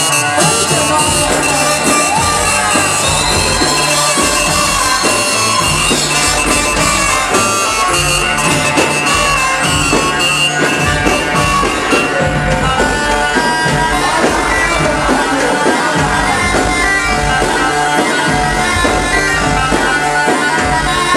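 Loud wedding dance music mix with a steady beat and a reedy wind-like lead melody.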